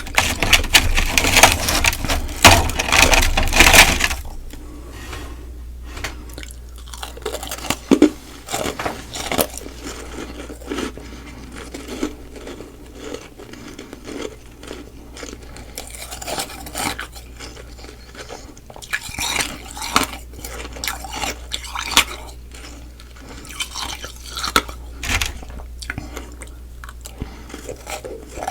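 Mouth crunching and chewing humidifier frost ice close to the microphone: loud, dense crunching for the first four seconds or so, then quieter chewing broken by scattered crunches.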